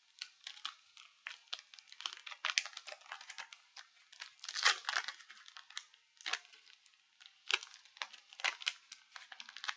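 Yu-Gi-Oh! booster pack's foil wrapper being torn and crinkled open by hand: a string of short, irregular crackling rips, the loudest about five seconds in. The pack is hard to tear open.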